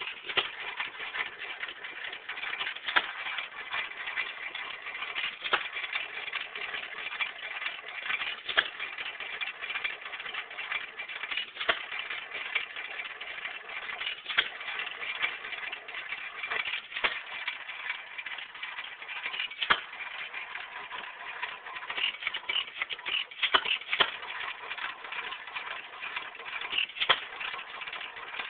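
1926 Hercules Model H 2 HP hit-and-miss engine running: a sharp firing pop about every three seconds, with a steady mechanical clatter as the engine coasts between firings. The pops come closer together a little after the middle.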